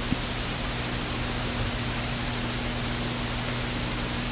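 Steady hiss with a low, even hum underneath: background room tone with no distinct event, apart from one faint click just after the start.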